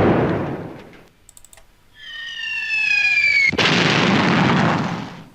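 Sound-effect samples played back. A loud burst of noise fades out over the first second. Then come a few soft clicks and a whistle that slides down in pitch, cut off suddenly about three and a half seconds in by a loud blast-like burst that holds for about a second and then fades.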